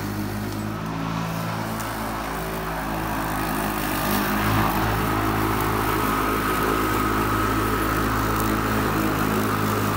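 Harbor Freight Atlas 80V battery-powered lawn mower running while it cuts grass: a steady motor hum with a thin high whine. It gets louder about four seconds in.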